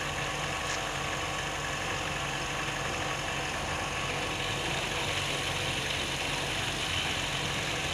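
A steady machine hum, even in level and without distinct events.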